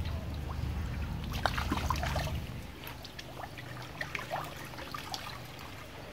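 Rainwater trickling and dribbling into a rain-swollen pond, with scattered small drips and splashes. A low rumble underneath fades out about two seconds in.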